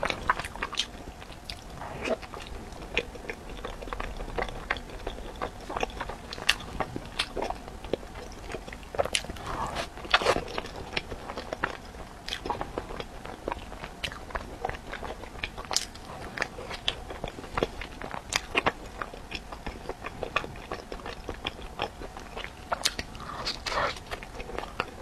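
Close-miked chewing of a cream-filled bread roll: a steady run of wet mouth clicks and smacks, with a few louder ones midway and near the end.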